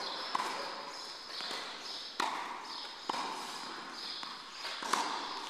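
Tennis balls being struck and bouncing in an indoor tennis hall: four sharp knocks, irregularly spaced, each ringing on in the hall's echo, over a steady background hiss.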